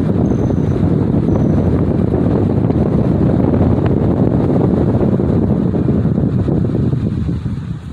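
Wind buffeting the microphone of a moving car, a loud rough low rumble that dies down near the end.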